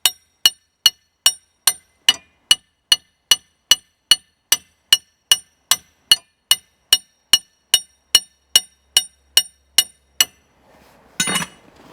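Hammer striking metal in a steady run of blows, about two and a half a second, each with a short metallic ring, while driving out a front CV axle on a pickup truck. The blows stop just before the end, followed by a brief louder clatter.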